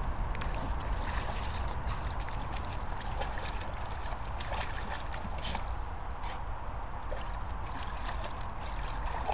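Dog splashing and pawing at the water in a shallow plastic paddling pool, water sloshing with scattered sharper splashes, over a steady low rumble.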